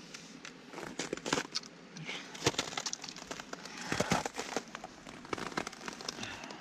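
Boots crunching and shuffling on snow-crusted ice: irregular crackles and crunches, loudest about two and a half and four seconds in.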